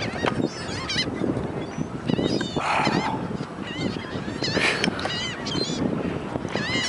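A flock of seagulls calling, many short squawks from several birds overlapping and repeating, over a steady rushing background noise.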